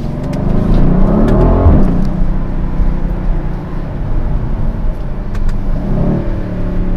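Mercedes-AMG GLE 63 S's 4.0-litre twin-turbo V8 pulling away, its note rising in pitch over the first couple of seconds, then running steadily, with another smaller rise near the end.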